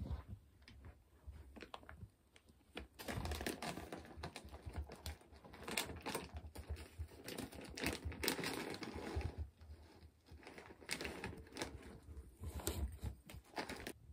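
Rustling and an irregular soft patter of bare feet and a Netherland dwarf rabbit's paws running on a quilted floor cover, in uneven bursts.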